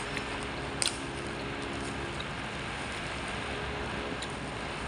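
Plastic fork and spoon clicking against a plate while eating, with one sharp click about a second in and a few fainter ticks later, over a steady background hiss.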